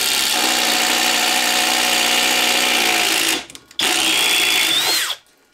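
Flex 24V brushless impact driver on its top speed driving a half-inch twist bit into a wooden post, slowing a little under the load. It runs steadily for about three and a half seconds, stops briefly, then runs again for about another second and a half.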